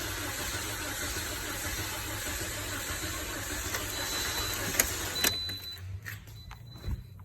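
2009 Toyota Corolla's 1.8-litre four-cylinder engine running steadily, then cut off about five and a half seconds in, with two sharp clicks just before it stops and a few soft knocks after.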